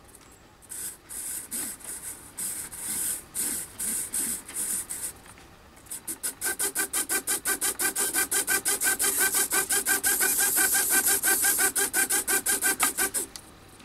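Small RC hobby servos of an ornithopter flapping-wing test rig whirring through short, irregular moves at first. From about six seconds in they sweep back and forth in a steady flapping rhythm of about five or six strokes a second, then stop suddenly near the end.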